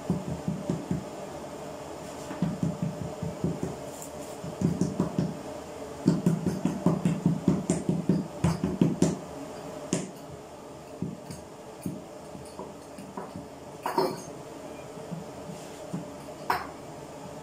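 Hands patting and pressing a ball of bread dough flat on a floured wooden board: runs of quick soft thumps, about four or five a second, heaviest in the middle, then a few scattered taps and a sharp click.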